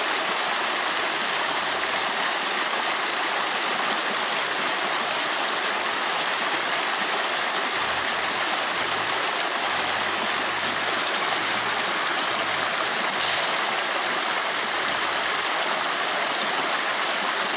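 A small mountain stream rushing and splashing over rocks close by, a steady, even rush of water.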